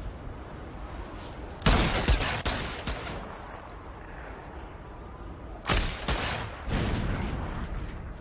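Gunfire in two bursts of several shots, one about two seconds in and another about six seconds in, the second running into a longer loud stretch, over a steady low background.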